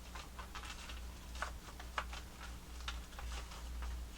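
Scattered light clicks and taps of the plastic parts of a toy snow cone maker being handled and fitted, about one or two a second, over a steady low hum.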